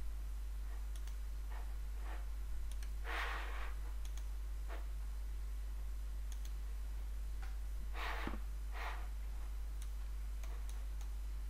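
Scattered faint computer-mouse clicks over a steady low hum, with a couple of breathy exhales about three and eight seconds in.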